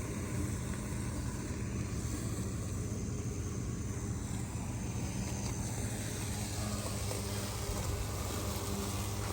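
Mammotion Luba 2 robotic lawnmower running steadily while cutting tall grass, its electric blade motor giving an even, buzzing hum.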